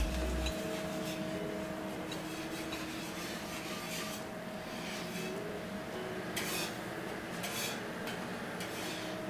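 Metal spatula scraping and sliding across a flat-top griddle as corn tortillas are turned and moved, with two sharper scrapes about six and a half and seven and a half seconds in.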